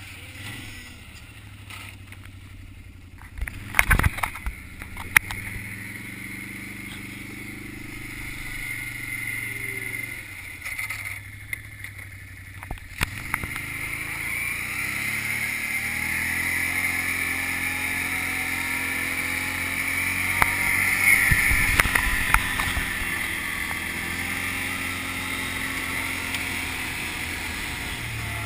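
Can-Am ATV engine running while being ridden over a dirt road, its pitch rising and falling with the throttle. A few sharp knocks come about four to five seconds in.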